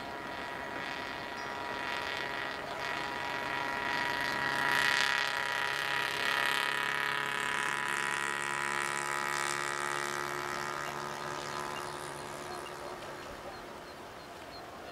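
Boeing 747-400 freighter's four jet engines at takeoff power, heard from afar: a steady rumble with a chorus of whining tones that swells to its loudest about five seconds in, then fades away.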